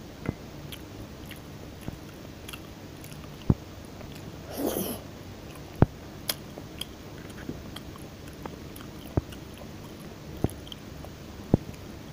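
Close-miked chewing and mouth sounds of someone eating, with sharp wet clicks every second or two and one brief louder noisy burst about four and a half seconds in.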